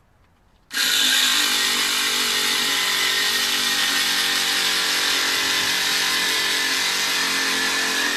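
A small electric pumpkin-carving saw switches on about a second in and runs steadily as it cuts into the pumpkin.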